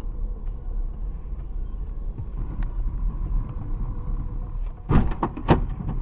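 Road and engine rumble inside a moving car, picked up by a dashcam microphone. Near the end come two loud crashes about half a second apart: a collision with a car that has cut in just in front.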